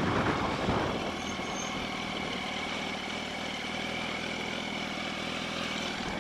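Yamaha R1 motorcycle's inline-four engine idling steadily, with no revving.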